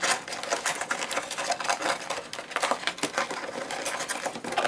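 Corrugated cardboard panels being pushed and slid into the slots of a cardboard chair frame: a dense, irregular run of scraping, rustling and tapping.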